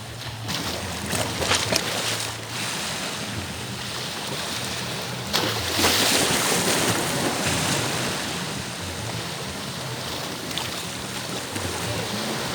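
Sea surf washing onto a beach, a steady rush of water with a larger wave surging in about five seconds in.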